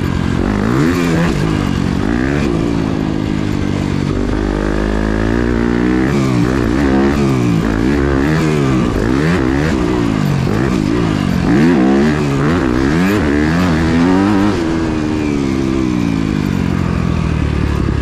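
Yamaha YZ250F single-cylinder four-stroke motocross engine, heard from on board the bike. It revs up and down about once a second as the rider works the throttle around the track.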